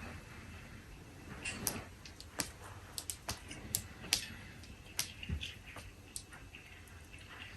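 Faint, irregular light clicks, about a dozen spread unevenly, with a soft rustle about one and a half seconds in.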